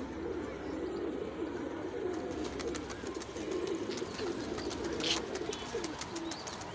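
Pigeons cooing continuously, several low warbling calls overlapping, with a brief high-pitched sound about five seconds in.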